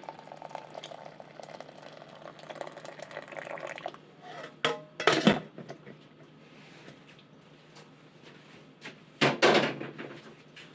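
Hot herbal drink poured from a cooking pot into a bowl for about four seconds. Then come loud clanks of pot and dishes, a cluster around five seconds in and another near the end.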